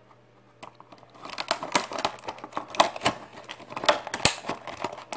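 Rigid clear plastic blister packaging crackling and clicking in quick, irregular snaps as it is handled and pried open, starting about a second in.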